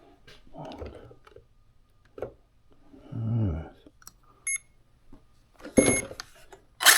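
A couple of short electronic beeps among quiet handling knocks and rustles, with a sharp click near the end.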